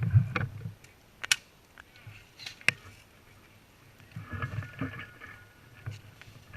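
Two sharp single cracks about a second and a half apart, typical of airsoft guns firing. They sit over a low rustle of movement and gear, and faint distant voices come in later.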